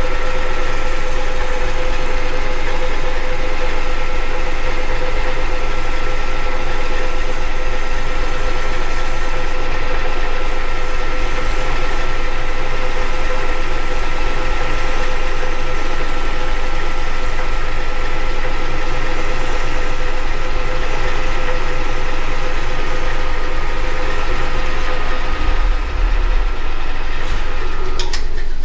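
Manual metal lathe running steadily with a boring bar taking a finishing cut inside a spacer's bore, a constant machine whine with a steady tone that cuts off near the end as the lathe is stopped.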